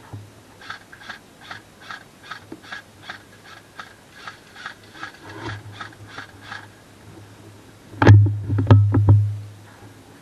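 Footsteps, about two and a half a second, for some six seconds; then, about eight seconds in, a loud cluster of knocks and thumps lasting about a second.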